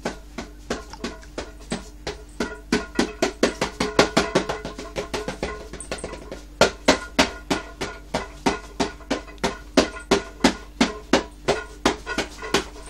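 A snack can beaten by hand like a drum, a quick steady beat of about three to four strikes a second that packs tighter for a couple of seconds near the middle.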